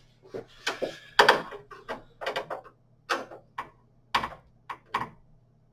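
A screwdriver and screws clicking and knocking against the metal PC case while a graphics card is fastened in: about ten sharp, irregular clicks over several seconds.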